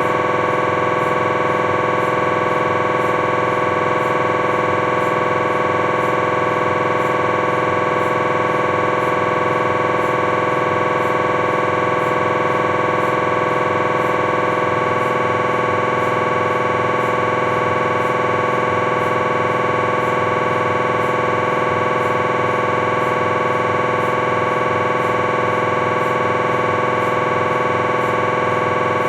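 Philips 1.5 T MRI scanner running a T1-weighted coronal cervical spine sequence: the gradient coils give a steady electronic buzzing tone with many overtones. Its tone shifts slightly about halfway through.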